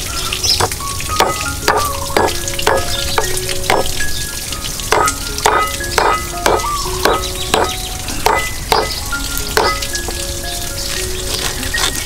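Heavy cleaver chopping lemongrass stalks on a wooden board: a run of sharp chops, about two a second, with a short pause near the middle.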